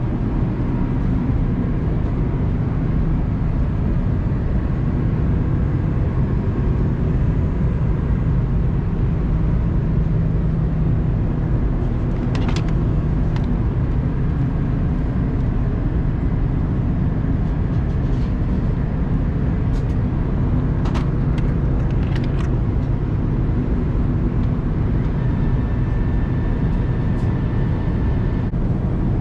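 Steady cabin noise of an Airbus A330-200 airliner in descent: the low rumble of engines and airflow. A few brief clicks come about twelve and twenty-one seconds in.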